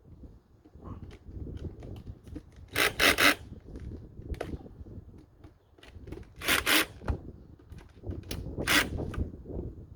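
Hand-tool and handling work on a motorcycle's intake: three short rasping bursts, among light clicks and rubbing.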